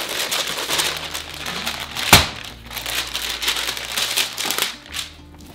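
Parchment paper and plastic wrap crinkling and rustling as they are peeled back and handled, with one sharp, loud crackle about two seconds in. The rustling dies down near the end.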